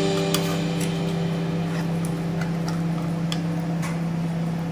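A metal spoon clicking and scraping against a tin can as tuna is scooped out, a few light separate clicks over a steady low hum.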